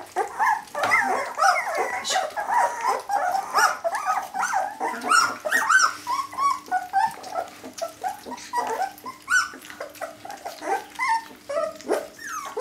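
Litter of jämthund puppies yelping and whining, many short high cries overlapping one another.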